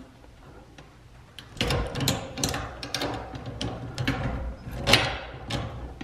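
Irregular metallic clicks and scraping of a hand tool turning the chain-tension nut on the threaded rod of a chain-drive garage door opener's trolley, starting about a second and a half in: tightening the chain to take out its sag.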